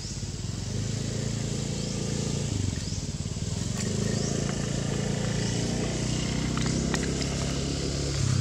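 A motor engine running steadily, a low hum that grows a little louder about a second in. Short rising chirps repeat high above it about once a second.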